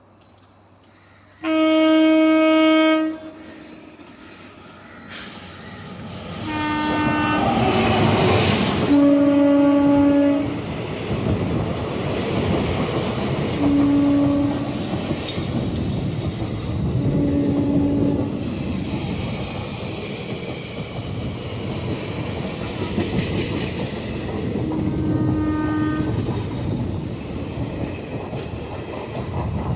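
Train horn sounding one long blast, then a train approaching and running past with a steady rumble and clatter of wheels on rails. The horn sounds several more shorter blasts as it passes.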